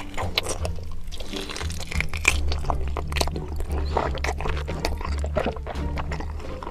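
Close-miked eating: a rapid string of crunching and chewing clicks. Background music with a steady bass line runs underneath.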